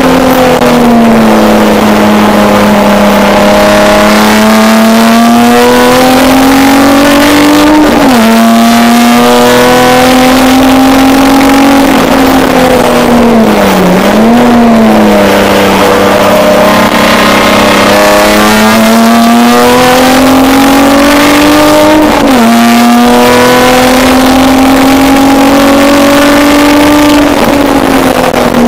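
A race car's engine, heard from inside the caged cockpit, running hard. Its pitch climbs slowly through each gear and drops sharply at upshifts about 8 and 22 seconds in. Near the middle it briefly dips and comes straight back up.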